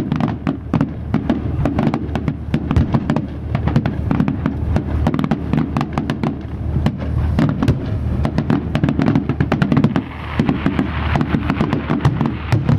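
Fireworks display: a dense, rapid run of sharp bangs and crackles over a steady low rumble, with a brief lull about ten seconds in.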